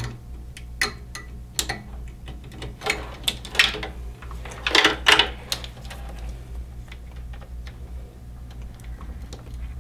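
Clicks and rattles of cables and small plastic connectors being handled as a PC fan's power lead is plugged in, busiest in the first half, over a steady low hum.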